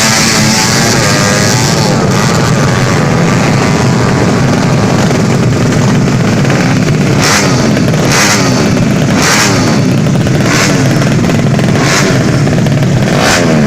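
Tuned 200cc four-stroke underbone drag bike engine running loud and revving up and down repeatedly. In the second half, six sharp bursts come about a second apart, one with each rise in revs.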